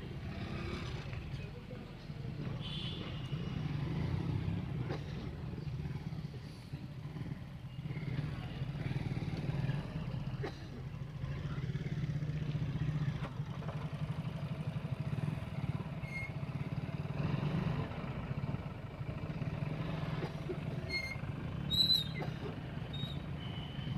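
Small motorcycle engine running at low speed, its note rising and falling as the bike is ridden slowly around a tight test course. A brief shrill high-pitched sound comes near the end.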